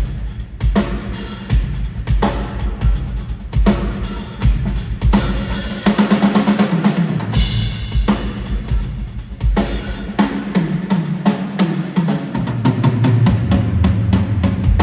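Live band playing: a drum kit with kick and snare keeping a steady beat under a moving bass line.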